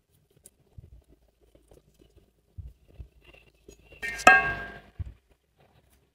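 Faint handling and rustling, then one sharp metallic clink about four seconds in that rings briefly: hand tools such as pliers and wire cutters knocking together as they are picked up.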